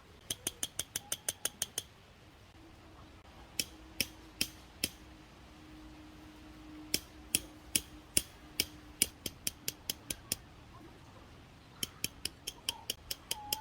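Sharp, dry clicks in runs. About ten come quickly together near the start, then slower clicks about two or three a second through the middle, and another quick run of about nine near the end.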